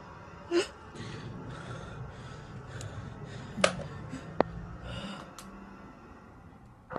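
Rubbing and handling noise with a handful of sharp clicks, the loudest about halfway through, over a low steady hum and faint music.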